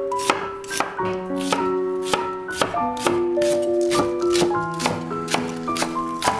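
Chef's knife chopping through onion and then green onion onto a bamboo cutting board, sharp chops about twice a second, over background music with held piano-like notes.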